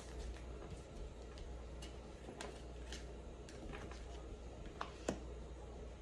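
Tarot cards being handled: scattered soft clicks and taps as a card is drawn from the deck and laid on the table, the sharpest tap about five seconds in.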